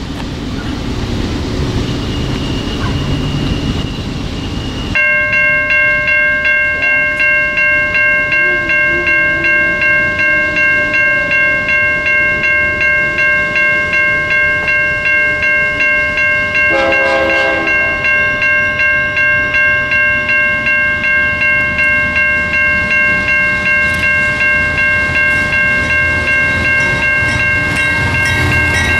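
Train rumbling past for the first few seconds, then a railroad bell ringing steadily about twice a second. A brief horn note sounds about halfway through.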